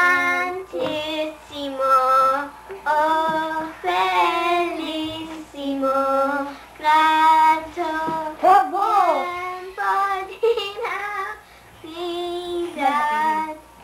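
A young girl singing a tune on her own, in long held notes with short breaks between phrases.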